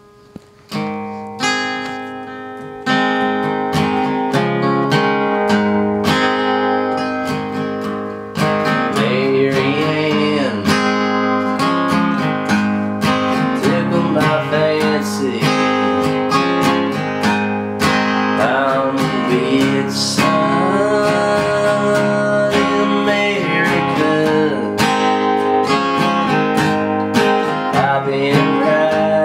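Solo acoustic guitar: a few chords struck and left to ring, then steady strumming. About eight seconds in it grows louder and a man's singing voice comes in over it.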